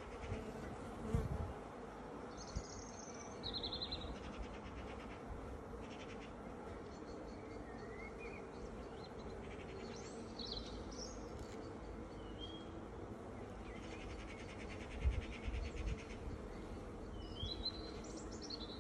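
Honeybees buzzing steadily around an opened hive, with short high chirps several times and a few brief knocks.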